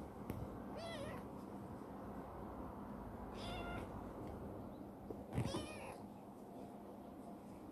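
Small black cat meowing three times in short calls, the last one loudest, as it rubs against a person's hand to be petted.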